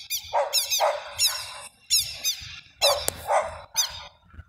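A dog barking repeatedly, a run of short barks about two a second with a brief pause in the middle.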